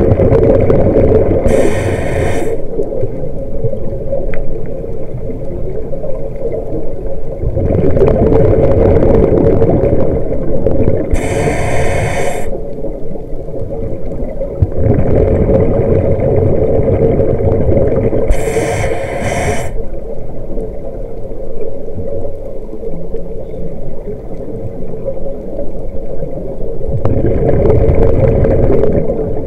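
Scuba regulator breathing heard underwater through a camera housing: a short hissing inhale three times, about every seven to nine seconds, with louder stretches of bubbling exhale between them, over a steady low rush of water noise.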